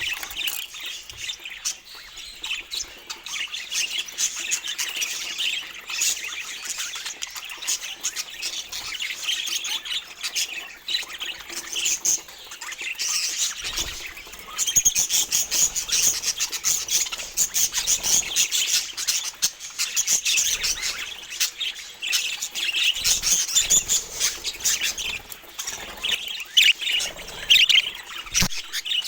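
Budgerigars chirping and chattering continuously in quick, high-pitched runs, a little louder in the second half.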